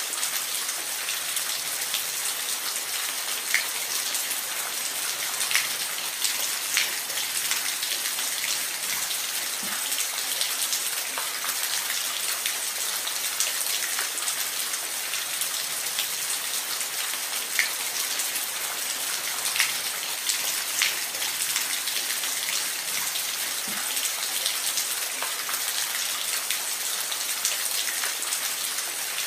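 Steady rain falling in a forest: a dense even hiss with many individual drops ticking on leaves and surfaces.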